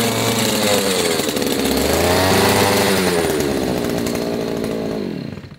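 Small 4-horsepower two-stroke outboard motor with a weed-eater-style engine, running with its propeller out of the water, revved up and down twice, then winding down and cutting off near the end.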